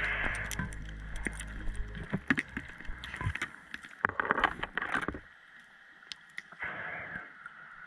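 A scuba diver's exhaled bubbles gurgling and rushing past the underwater camera in several bursts, with scattered clicks. A low steady hum stops about two seconds in.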